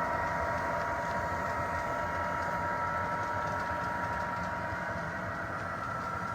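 HO-scale model train running on the layout track: a steady electric motor whine over the rattle of small wheels on the rails, slowly getting quieter.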